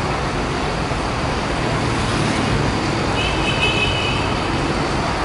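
Steady city traffic on a wet avenue: cars and buses running past on rain-soaked asphalt. A brief high-pitched squeal sounds a little past the middle.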